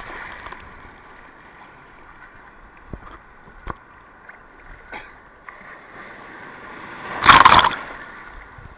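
Ocean surf at a camera held at the waterline: water sloshing and splashing around it, with a few small knocks. About seven seconds in, a breaking wave washes over the camera in a loud rush of churning water.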